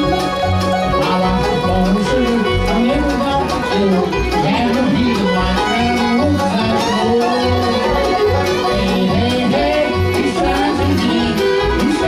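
Live bluegrass band playing at a steady tempo: banjo, fiddle, mandolin and acoustic guitar over upright bass notes on an even beat.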